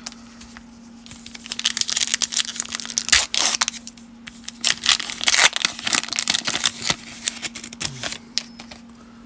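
A foil baseball card pack wrapper being torn open and peeled apart by hand. It is a crackly run of crinkling and ripping that starts about a second in and stops near the end.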